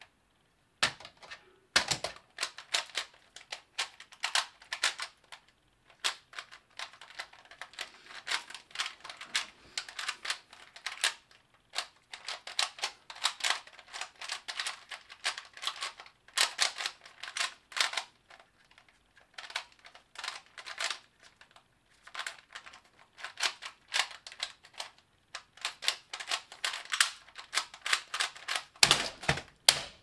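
Rubik's cube being turned rapidly in one hand: fast, uneven clacking of the plastic layers, in runs with brief pauses. A few louder knocks come near the end as the solve finishes.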